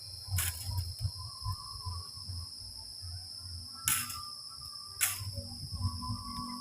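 Steady high-pitched chorus of crickets or similar insects, with three sharp knocks (about half a second in, near four seconds, and at five seconds) over a low uneven rumble.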